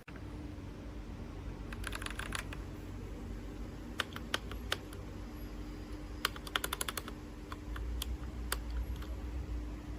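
Typing on a SHAVALIFE K87 mechanical keyboard: irregular key clicks, some in quick runs and others single, over a steady low hum.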